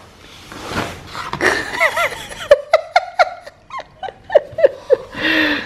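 A woman laughing in a run of short bursts, a few each second, starting about a second and a half in, ending in a longer breathy laugh.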